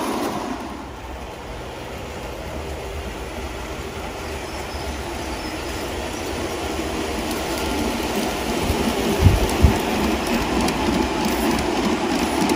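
G-scale model train running on outdoor garden track, its wheels clicking over the rail joints. The sound drops about a second in, then grows louder as the train nears again, with two short low thumps a little past the middle.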